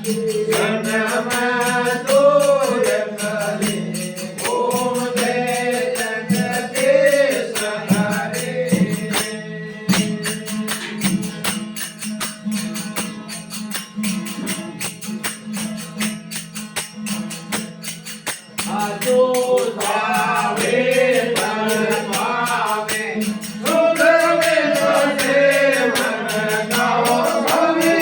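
Devotional aarti bhajan: a male singer's voice over a steady drone and fast, continuous jingling percussion. The voice drops out for about ten seconds in the middle while the drone and percussion carry on, then comes back.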